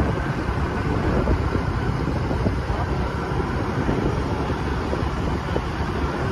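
Wind buffeting the phone's microphone on a moving vehicle: a steady, low rushing rumble with road noise underneath.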